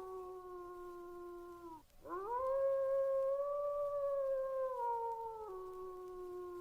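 A dog howling in two long howls. The first slides down in pitch and ends about two seconds in. The second begins with a quick rise, holds steady, then drops in steps.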